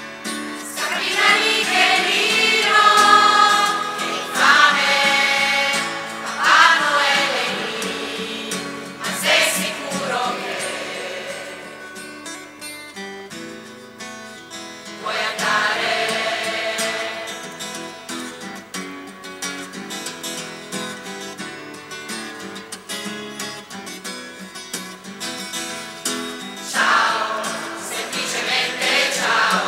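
Choir of men, women and children singing an Italian song together in phrases, with acoustic guitar accompaniment.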